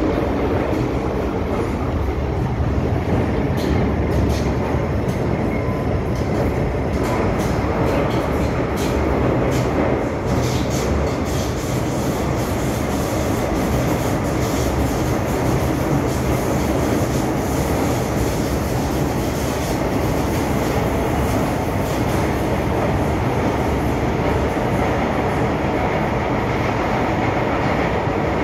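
MTR Island Line M-Train electric multiple unit running between stations, heard from inside the passenger car: a steady loud rumble of the train under way, with a run of sharp rapid clicks from about three to eleven seconds in.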